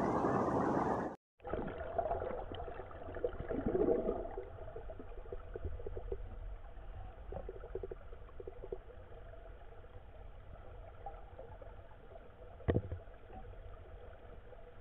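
A river flowing over stones, then, after a brief cut, muffled underwater river ambience heard through a waterproof camera housing: a low rumble with faint scattered crackling clicks. One sharp click stands out near the end.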